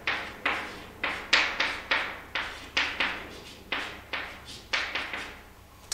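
Chalk writing on a chalkboard: a quick series of short taps and scratches, two or three a second, as a word is written stroke by stroke.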